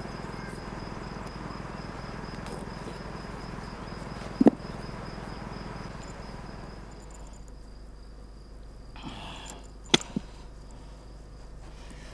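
Crickets trilling steadily in the grass, one thin high unbroken tone, over a low haze that fades partway through. A sharp click about four and a half seconds in and two more close together near the ten-second mark.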